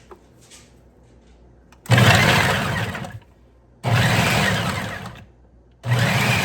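Food processor pulsed three times, each run about a second long and evenly spaced, chopping celery, bell peppers, onions and garlic.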